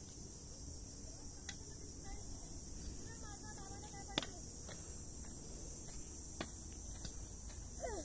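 Steady high-pitched drone of insects in dry scrub. A warbling call comes about three seconds in, and a sharp falling call comes near the end. A few sharp taps are scattered through it, the loudest about four seconds in.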